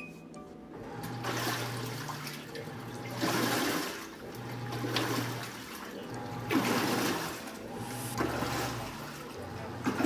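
RCA 2.0 portable washing machine running its wash after start is pressed: water swishes in the tub in swells about every one and a half to two seconds, over a low motor hum that cuts in and out in steps.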